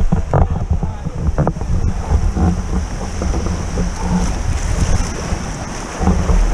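River water rushing and splashing around inner tubes on a choppy stretch of current, with heavy wind buffeting on the camera's microphone.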